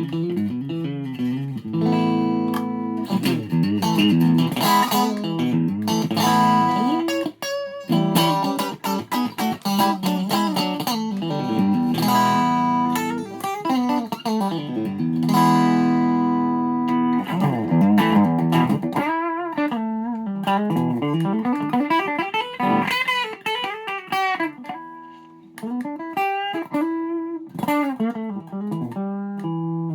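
Ibanez SA260 electric guitar with SSH pickups being played: ringing chords held for a second or two at a time, then single-note lines with wavering, bent pitches in the second half.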